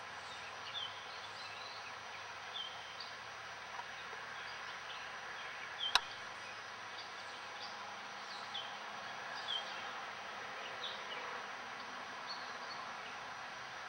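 Outdoor riverside ambience: a steady hiss with short high chirps scattered through it, and one sharp click about six seconds in.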